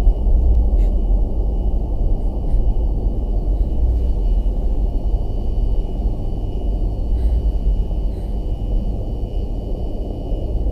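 Steady, loud low rumbling drone, the kind of ambient sound effect laid under a horror scene, with a faint steady high tone above it and a few faint clicks.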